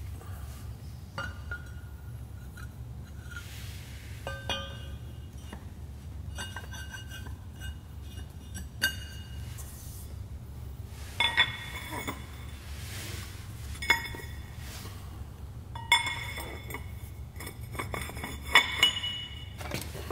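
Loose steel parts and tools clinking and ringing as they are handled and set down, with the sharpest clanks coming about every two seconds in the second half, over a steady low hum.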